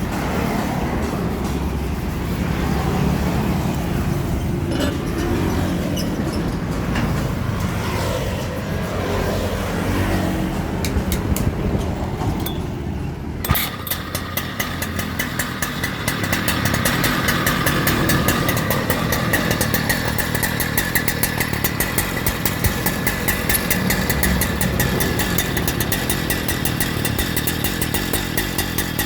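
Two-stroke engine of a Husqvarna K1260 concrete cut-off saw: a low rumble with a few clicks, then about halfway through the engine suddenly comes in and runs steadily with a fast, even firing rhythm and a steady whine.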